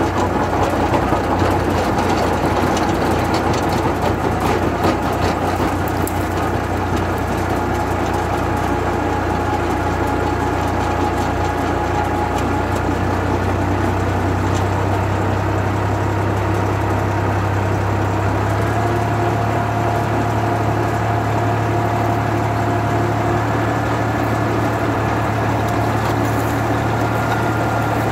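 Tractor diesel engine running steadily under load, driving a hydraulic auger hole digger as it bores into soil and lifts out. Scattered clicks and rattles in the first several seconds; the engine note steps up slightly about two-thirds of the way through.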